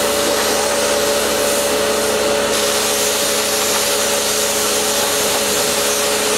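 Kärcher K2 electric pressure washer running steadily, its motor whine held at a constant pitch under the hiss of the water jet from the lance as the snow foam is rinsed off the car.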